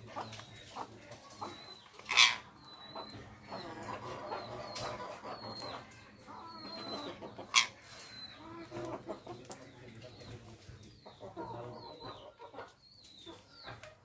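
Indian ringneck parakeets chattering: many short falling chirps and soft murmuring calls, with two loud sharp screeches, one about two seconds in and one about halfway through.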